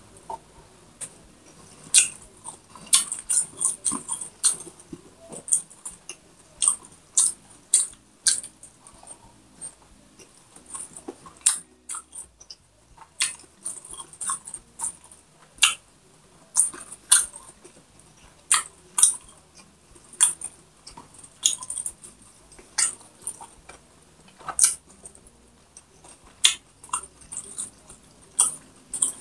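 Close-miked chewing of crispy food: irregular sharp crunches and wet mouth clicks, several a second, with a brief pause about midway.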